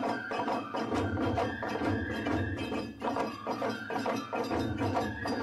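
Background music with a steady low beat and held notes.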